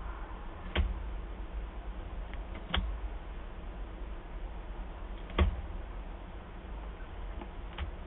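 Peregrine falcon feeding on prey in a wooden nest box: three sharp knocks and a fainter tap near the end as it tears at the carcass and shifts on the floor, over a steady low hum.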